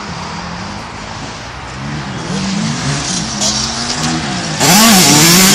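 Dirt bike engine revving up and falling off over and over as it is ridden over jumps, at first at a distance; about four and a half seconds in the sound jumps suddenly to a much louder, close-by engine.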